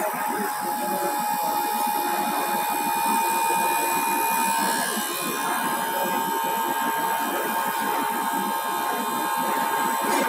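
Common rail injector test bench running, its drive motor turning the high-pressure pump at 600 rpm: a steady machine noise with a faint whine, as rail pressure is brought up to the 100 MPa test setpoint.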